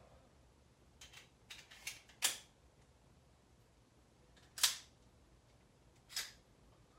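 Handling a pistol and its hard case: about six sharp mechanical clicks and clacks, scattered and uneven, the loudest about two and four and a half seconds in.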